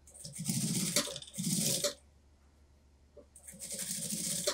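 Industrial lockstitch sewing machine stitching a sleeve into a jacket's armhole, running in short bursts with a fast, even needle rhythm: twice in the first two seconds and once more near the end.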